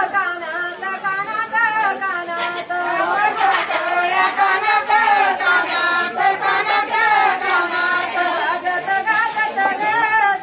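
Women singing a traditional Marathi jatyavarchi ovi, a grinding-stone wedding song, unaccompanied. The sung line bends up and down in pitch without a break.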